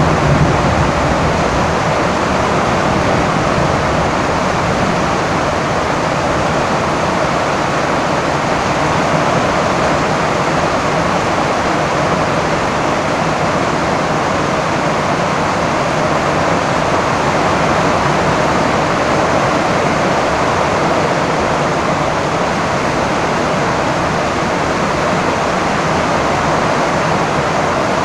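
Heavy rain falling steadily on a tin roof, a dense, even hiss. The tail of a low thunder rumble dies away in the first second.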